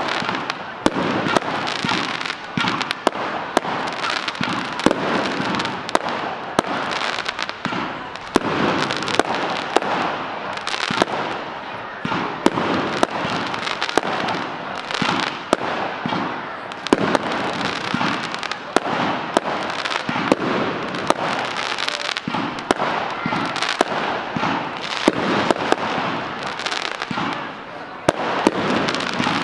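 Fireworks display: a rapid, continuous run of sharp bangs and crackles from shells bursting overhead, with a brief lull near the end.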